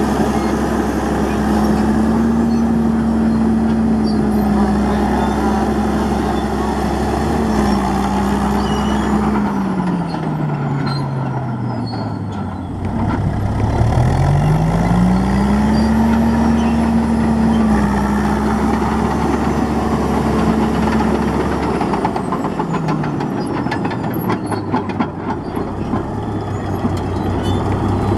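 Caterpillar D9H crawler dozer's diesel engine running hard as the machine travels. Its note sinks steadily around the middle and climbs back again, then dips briefly once more. Near the end a run of rattling clicks and clanks from the steel tracks comes in over the engine.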